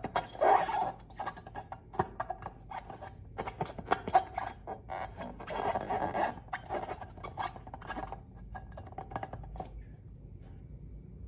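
Slime being squeezed and worked by hand, giving irregular wet squelches and small sticky clicks and pops. It quietens about ten seconds in.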